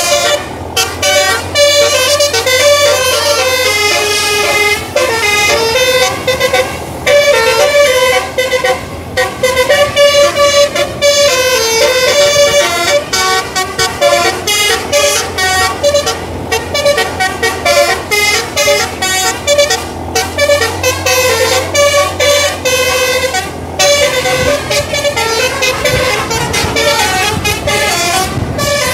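A bus's basuri telolet horn, a multi-note musical air horn, playing a long run of quickly changing tones with a few brief breaks, over the steady low rumble of the bus engine.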